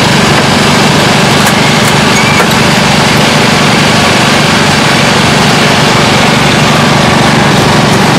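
Loud, steady drone of a small gasoline engine running at a constant speed: the hydraulic power unit driving the rescue tool (Jaws of Life) that is cutting and spreading a crashed car's door.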